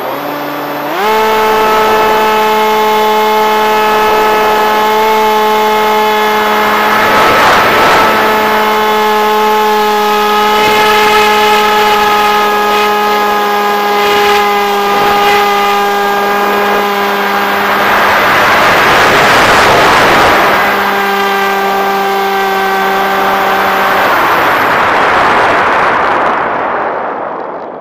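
Electric brushless motor and pusher propeller of a Bixler v1.1 foam RC plane, heard from a camera on the plane itself. A lower whine jumps up in pitch about a second in as the throttle opens, then runs steady at full power. It cuts out about 24 seconds in, leaving rushing wind, and two swells of wind noise come during the flight.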